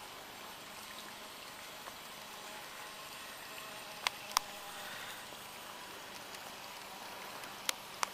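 Garden-railway model diesel locomotive hauling log wagons along the track: a steady faint running hiss with a thin motor whine, and two pairs of sharp clicks, about halfway and near the end.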